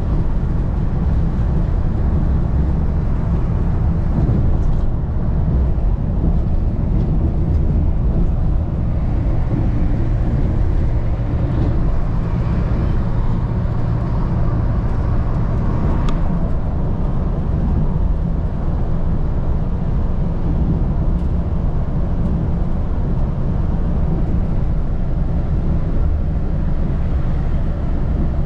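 Volvo B8R bus cruising at speed, heard from inside the passenger cabin: a steady low engine drone with road and tyre rumble.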